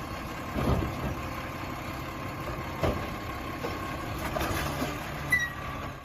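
Garbage truck engine idling steadily, with a single clank about three seconds in; the sound stops suddenly at the end.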